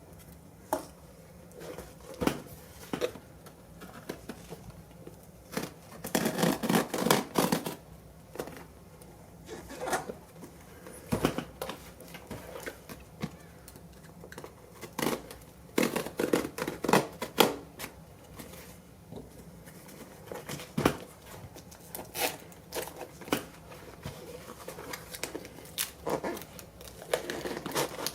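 A cardboard shipping box being opened and unpacked by hand: tape tearing, cardboard and packing material rustling and crinkling, with scattered clicks and knocks in irregular bursts.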